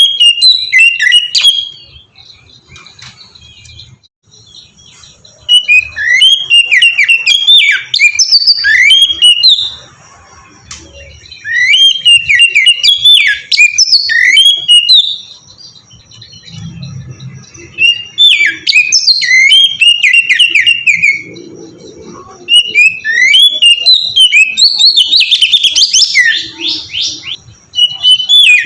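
Oriental magpie-robin (kacer) singing in loud bursts of fast, varied whistled phrases, each burst a few seconds long, with short pauses of about two seconds between them.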